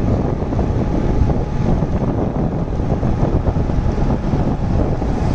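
Wind buffeting the microphone of a moving motorcycle: a steady, heavy low rumble, with the bike's running and tyre noise on the wet road mixed in.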